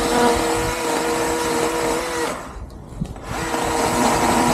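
Electric Husqvarna chainsaw motor running with a steady whine while cutting brush. It stops about two seconds in and starts again a second later.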